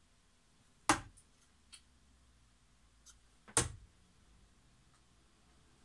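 Two darts striking a Unicorn dartboard: a sharp thud about a second in and another about two and a half seconds later, with a few faint ticks between them.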